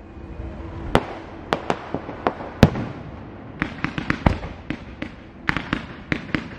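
Fireworks going off: a run of sharp bangs and cracks at irregular intervals, a few single reports in the first half, then quick clusters of them around four seconds in and again near the end.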